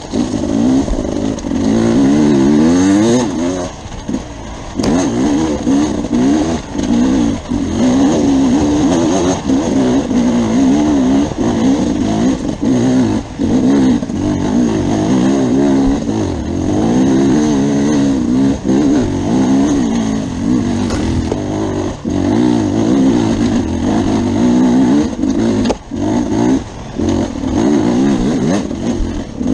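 Beta RR enduro motorcycle engine revving up and down over and over under throttle on a rough, rocky trail, its pitch rising and falling every second or so, with short drops in level and occasional knocks.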